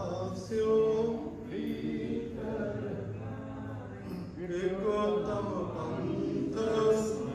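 Men's voices chanting a Sikh prayer as a sung recitation, with long held notes, over a steady low hum.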